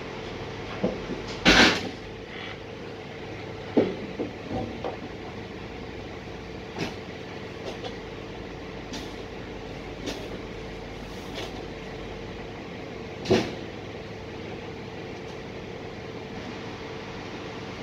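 Heavy truck engine running steadily, with scattered sharp knocks from the container and platform handling. The loudest knock comes about a second and a half in and another about thirteen seconds in.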